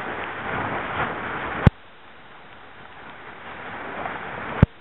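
Hurricane wind gusting against the microphone, with waves in it. The rush swells twice, and each swell ends in a sharp thump and a sudden drop.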